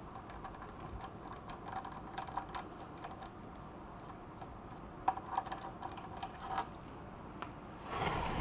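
Light, irregular metallic clicks and taps of a socket and extension bar being handled and fitted to the brake caliper bolts, with a few sharper clicks around the middle.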